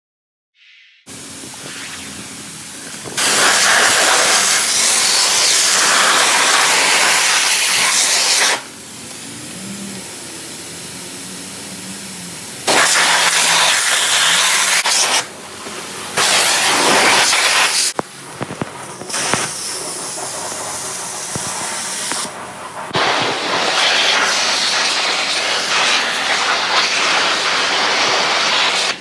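Car-wash pressure-washer wand spraying water to degrease a greasy CNC machine table: a steady hissing blast that comes in several loud stretches with quieter spells between.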